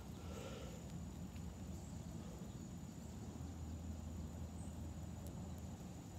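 Quiet outdoor ambience: a steady low rumble with a faint, thin high-pitched tone above it.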